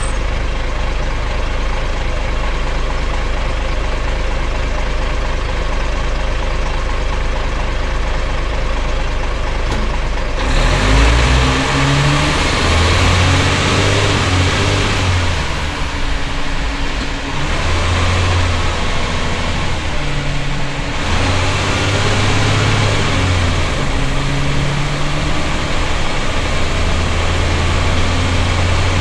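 Cummins L10 turbocharged straight-six diesel in a Leyland Tiger bus. It idles steadily for about ten seconds, then pulls away under load. Its pitch then climbs and drops back several times as the ZF automatic gearbox changes up.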